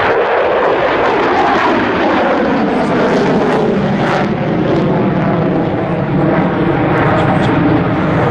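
Single-engine F-16 fighter jet's Pratt & Whitney F100 turbofan, a loud, steady jet roar during a display flypast, its pitch sinking slowly in the second half.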